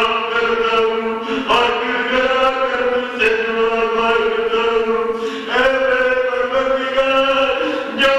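A man's voice chanting a mourning lament into a microphone, holding long drawn-out notes that shift pitch every two seconds or so.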